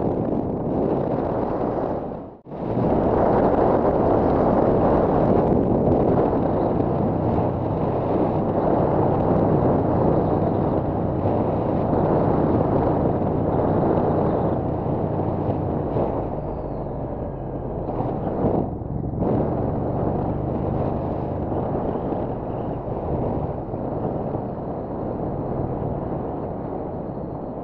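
Wind rushing over a helmet-mounted microphone on a moving motorcycle, with the 2007 Triumph America's 865 cc parallel-twin engine running steadily underneath at road speed. The sound cuts out briefly about two seconds in.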